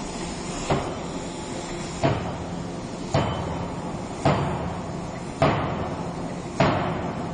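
A 3-ton CNC-controlled hydraulic die forging hammer striking a red-hot billet: six blows about one every second and a bit, each ringing out briefly, over a steady hum of the machinery. The first blow is lighter than the rest.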